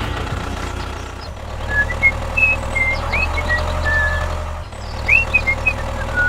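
Steady motor drone with a constant whine, with short high chirps scattered over it from about a second and a half in.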